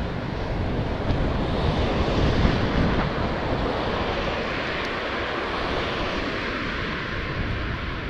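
Steady wind rush and low rumble on a helmet-mounted camera's microphone as a bicycle moves along at speed, mixed with the hiss of car traffic in the neighbouring lanes, swelling a little about two to three seconds in.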